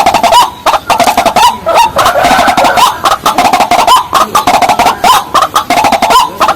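White-breasted waterhen calls: loud, rapidly repeated call notes with short upward hooks, running on without a break.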